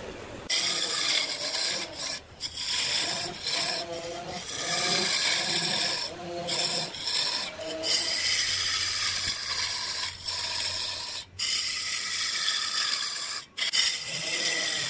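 A lathe tool cutting into a large spinning wooden log, making a steady scraping, shaving sound as chips fly off. It breaks off briefly several times when the tool eases off the wood.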